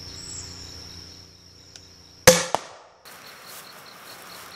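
Homemade PVC shoulder-mounted rocket launcher firing its gun cotton (nitrocellulose) charge: one sharp, loud bang about two seconds in, a smaller crack right after it and a short fading rush. Insects trill steadily in the background.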